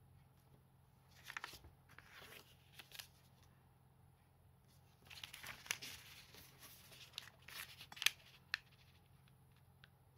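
A sheet of origami paper rustling and crinkling as hands turn it over, fold it and press the creases, in short bursts about a second in and again from about five to eight and a half seconds in, with a few sharp crackles of the paper.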